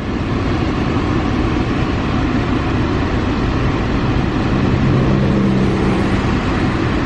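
Car air-conditioning blower running on high, a steady loud rush of air, with a faint low hum coming in for a second or so about two-thirds of the way through.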